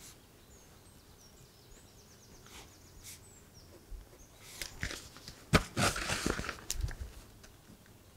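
Ballpoint pen writing on paper, with soft scratches, then a louder stretch of paper rustling and handling about five to six seconds in as the notebook page is turned back. Faint high bird chirps sound in the first two seconds.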